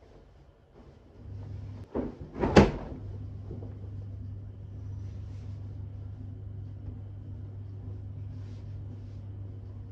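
Two knocks a half second apart, about two seconds in, the second much louder, over a steady low hum that starts a little after the first second.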